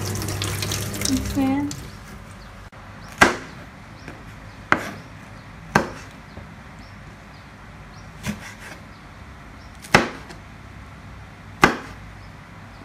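Tap water running briefly over a green chili in a stainless steel sink, then a kitchen knife chopping green chilies on a plastic cutting board: six sharp knocks spaced a second or two apart.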